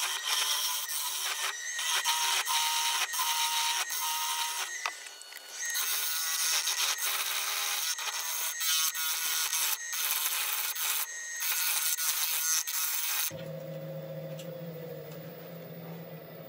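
A flat knife scraping the face of a very hard rock elm platter spinning on a wood lathe: a harsh rasping scrape full of quick clicks. About thirteen seconds in it stops abruptly, leaving the lathe running with a low steady hum.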